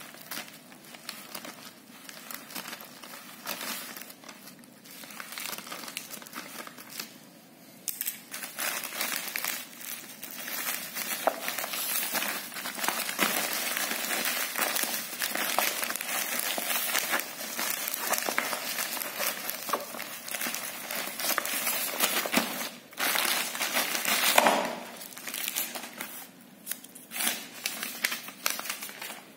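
Plastic courier mailer bag being cut open with scissors, then crinkling and rustling as a bubble-wrapped package is pulled out of it. The crinkling gets louder and denser about eight seconds in and thins out near the end.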